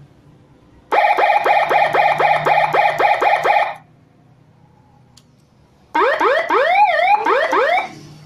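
Handmade seven-tone electronic siren module sounding two of its tones: first a fast chirp of rising sweeps, about four a second, for under three seconds, then after a pause a second tone of rising sweeps with a dip in pitch in the middle, for about two seconds.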